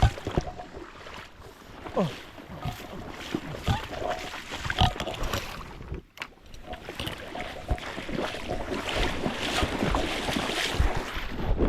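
Fast, high creek water rushing steadily, with wind buffeting the microphone and scattered small knocks, plus a short falling squeak about two seconds in.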